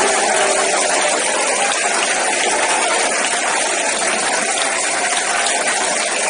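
A steady, loud rushing noise with no clear rhythm or pitch.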